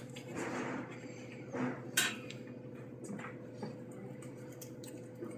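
A knife cutting and scraping through a beef round as it is boned out, with scattered clicks and taps of the blade on bone and the cutting board, the sharpest about two seconds in. A steady faint hum runs underneath.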